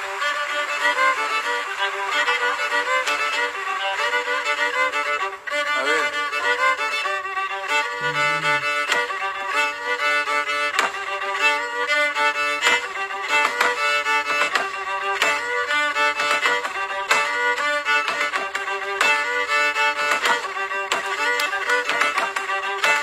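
Violin playing a fast, lively Afro-Peruvian melody over the sharp, rapid foot-taps of zapateo dancing, the taps coming thick and fast from about six seconds in.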